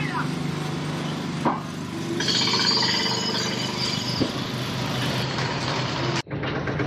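Street noise with a motor vehicle's engine running steadily, a single clink about a second and a half in, and an abrupt cut to a different sound near the end.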